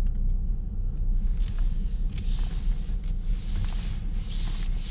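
Low, steady rumble of a car's engine and tyres heard from inside the cabin as it reverses slowly out of a parking bay. A few short rubbing hisses from hands sliding round the steering wheel, as full lock is wound on, come from about a second and a half in until near the end.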